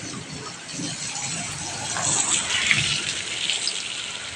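Heavy rain falling and splashing, swelling louder about two seconds in, then easing slightly.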